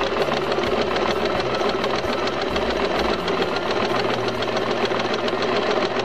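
Usha domestic sewing machine running and stitching cloth, its needle mechanism clattering in a fast, even rhythm. This is a test run of the straight stitch after a repair for thread breaking, with the thread now catching properly.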